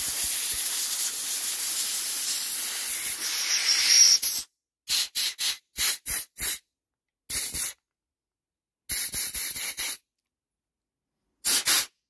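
Compressed-air blow gun hissing through the jets and passages of a Briggs & Stratton lawnmower carburettor, clearing out old-fuel gunk and debris. One long blast of about four seconds, then a string of short bursts of air.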